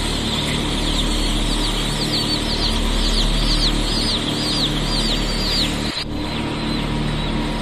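Baby chicks peeping: a run of short, high cheeps, about two or three a second, that stops about six seconds in. Under them is a steady hum.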